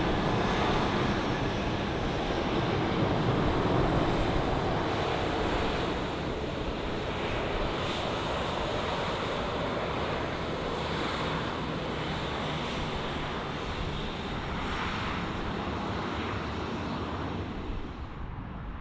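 Jet engines of a Boeing 737 airliner taxiing past at idle: a steady rush with a faint high whine that slowly falls in pitch, loudest in the first few seconds and easing as the jet moves on.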